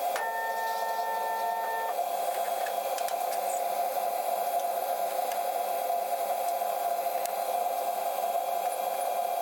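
Steady running hum of a 100 W CO2 laser cutter during a test cut in plywood, with a two-second electronic beep of several tones right at the start.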